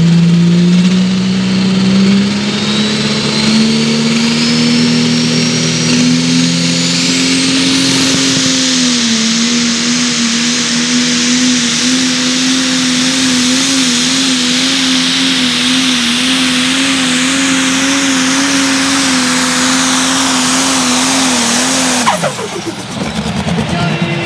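Landini Pro Stock pulling tractor's turbocharged Cummins 8.4-litre straight-six diesel running flat out, with dense exhaust noise. Its note climbs over the first several seconds as a Holset HX82 turbo whistle rises in pitch, then holds steady with a slight waver. About 22 seconds in the note falls away suddenly.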